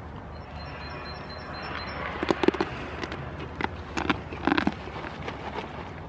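Footsteps and rustling on grass: a handful of short knocks and crackles, loudest about two and a half seconds in and again near the end. A faint, rapid, high chirping sounds in the first couple of seconds.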